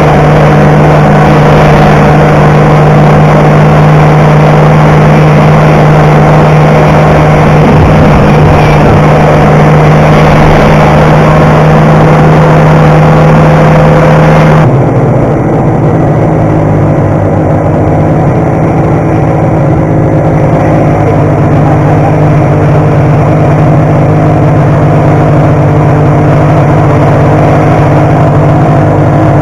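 1972 Ski-Doo TNT 440 snowmobile's two-stroke engine running steadily under way, heard from the rider's seat. About halfway through, the sound changes abruptly to a lower, duller engine note.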